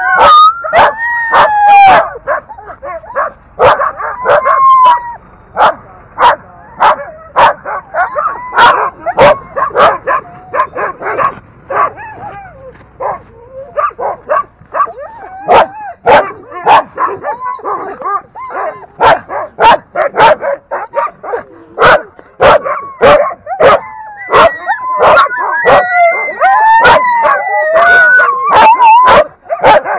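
A team of harnessed sled dogs barking and yipping excitedly at a race start, with rapid, overlapping sharp barks throughout. Wavering howls and whines rise over the barking at the start and again near the end.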